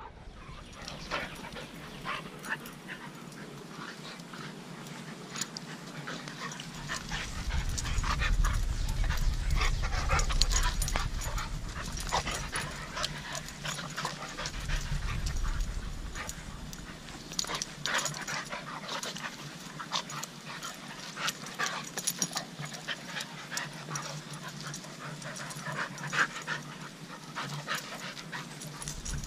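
Two dogs play-wrestling on grass, panting, with many short scattered clicks and rustles. A low rumble swells up for a few seconds twice, the first time about seven seconds in.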